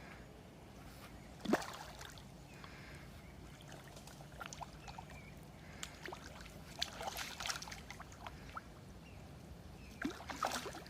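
Water splashing and sloshing as a small hooked carp thrashes at the surface while being played, with one sharp splash about a second and a half in and bursts of splashing later on.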